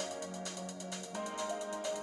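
Background music: sustained electronic chords over a steady beat, with the chord changing a little past halfway.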